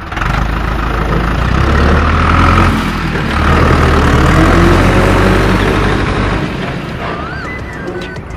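Dubbed-in tractor engine sound: a loud, low engine rumble running, with a brief dip about three seconds in, fading near the end.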